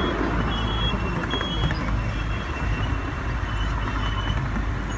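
Ride-on miniature train running, a steady low rumble of the carriages rolling along the track, with a few short high-pitched tones over it.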